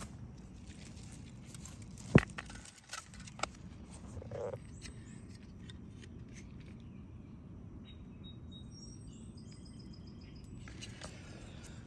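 Handling noise from a handheld camera outdoors: a sharp knock about two seconds in, then a few softer bumps, over a steady low background hiss. Faint high bird chirps come in briefly near the end.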